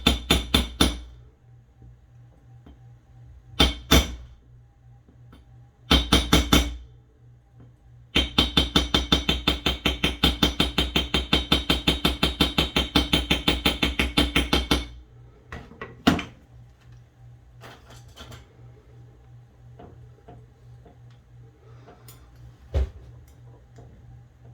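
Quick light hammer taps on a small piece of brass sheet, doming it into a curved end cap over a ball peen, each tap with a slight metallic ring. A few short runs of taps come first, then one long run of about six taps a second for about seven seconds, followed by a couple of single knocks.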